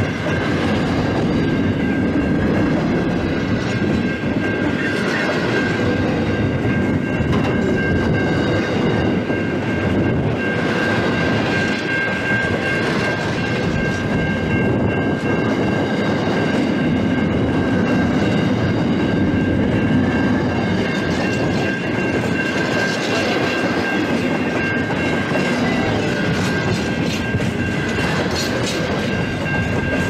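Container freight train's wagons rolling past close by, a steady rumble with the wheels clattering on the rails. A steady high-pitched tone runs over it throughout.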